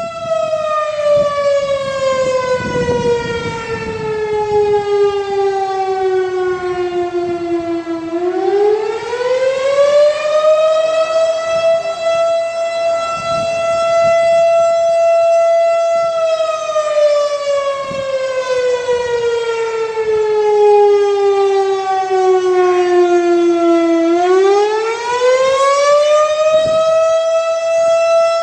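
Fire company's outdoor warning siren wailing for an accident call. The pitch sinks slowly for several seconds, climbs back quickly and holds high, and this happens twice.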